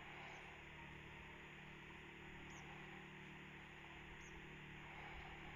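Near silence: faint steady outdoor background noise with a low hum, broken by three brief, faint high chirps.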